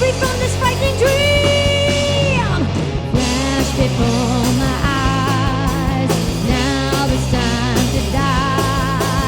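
Live heavy metal band playing loudly: distorted electric guitars, bass and drums, with long held lead notes that bend away at their ends and waver in pitch.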